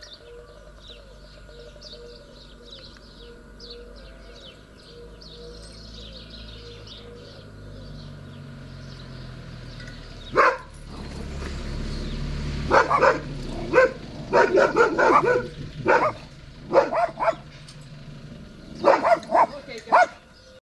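A large dog barking loudly in irregular clusters from about halfway through, several barks at a time with short gaps. A low rumble swells under the first barks and fades again. Before the barking there is only faint bird chirping.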